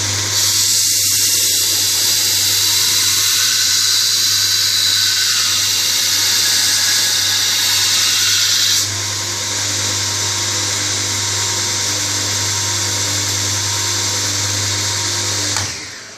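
Homemade belt grinder running steadily, with a loud hiss over the first half, like something pressed against the belt. It then runs on without the hiss and winds down near the end as the motor is switched off.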